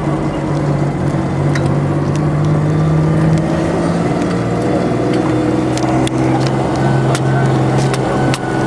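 Mercedes-Benz Unimog truck's diesel engine running steadily under way, heard from aboard, its note dropping a step about four seconds in, with scattered knocks and rattles from the ride.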